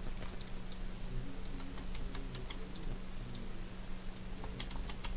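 Computer mouse and keyboard clicks: scattered light clicks, some in quick clusters, over a steady low hum.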